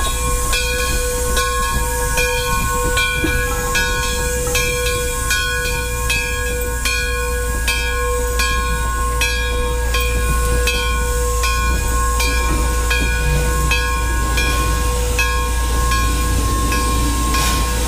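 Steam locomotive working slowly, its exhaust chuffing evenly at a little over one beat a second, with steam hissing and a steady tone underneath.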